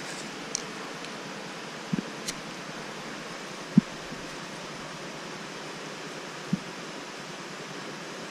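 Steady rushing noise of river water, with a few short knocks and clicks from handling the kindling and matches while a fire is lit, the loudest knock a little before halfway.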